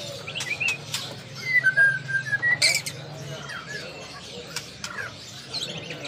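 Several caged songbirds chirping and singing, with a held whistled note about two seconds in and a few sharp clicks, over a steady low hum.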